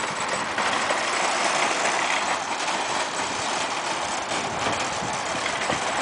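Wire shopping cart rolling over asphalt, its wheels and basket giving a steady rattling rumble.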